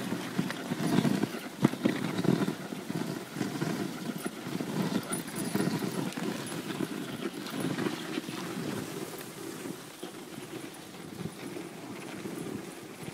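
Dog sled moving over a packed snow trail behind a running husky team: a steady scraping of the runners on snow with an uneven rhythm of soft thuds.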